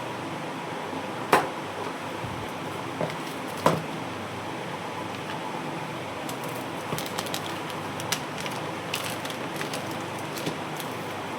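Steady background hiss with handling noise from unboxing small electronic parts: two sharp knocks, about a second and three and a half seconds in, then a scatter of lighter clicks and ticks.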